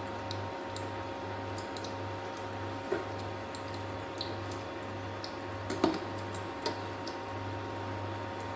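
Snacks deep-frying in hot oil: scattered small crackles and pops over a steady low hum, with a few light knocks near the middle, the loudest about six seconds in.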